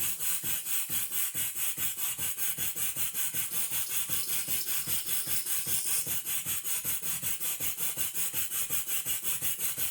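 Half-horsepower Sipp steam engine chugging with a rapid, even beat as it drives a small table saw through wood, the blade cutting with a steady rasping hiss. The engine is on the higher-torque, lower-speed pulley and is chugging through the cut well.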